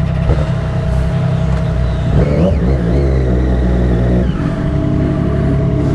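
Triumph Daytona 675R's inline three-cylinder engine running steadily under way, with the revs rising briefly about two seconds in.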